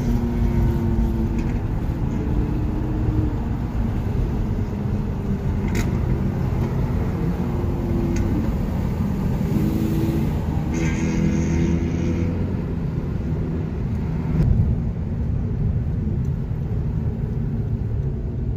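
Car engine and road noise heard from inside a moving car: a steady low rumble, with engine tones that shift in pitch now and then.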